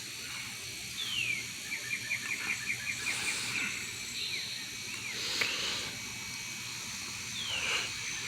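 A bird singing in the pre-dawn quiet: a falling whistle, then a quick run of short notes at about eight a second. Another falling whistle comes near the end, over a faint steady insect trill.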